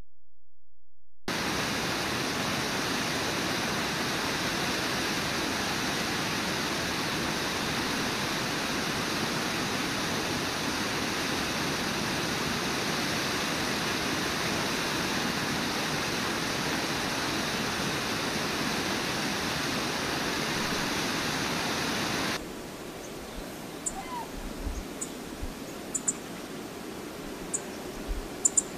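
Steady rush of whitewater pouring over Brooks Falls, which starts suddenly a second in and runs for about twenty seconds. It then cuts off abruptly to a much quieter background with a few faint short high chirps.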